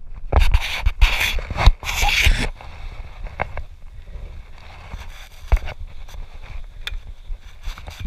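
Scraping, rustling and knocking as a stopped mountain bike is handled on a dirt trail among undergrowth. The sound is loudest and busiest in the first two and a half seconds, then drops to quieter rustles and occasional clicks.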